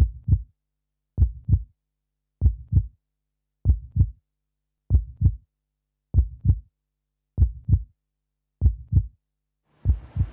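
Heartbeat: slow, regular lub-dub double thumps, about one pair every 1.2 seconds, nine in all, with silence between them. Near the end a soft rushing hiss fades in behind the last beat.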